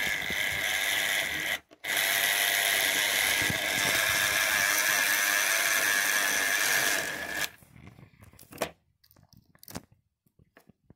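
Model locomotive's electric motor whirring as its driving wheels spin and scrub against the brass wire brushes of a Gaugemaster GM60 wheel cleaner. The whirr stops for a moment just under two seconds in, then runs again until it cuts off about three quarters of the way through, leaving only a few faint clicks.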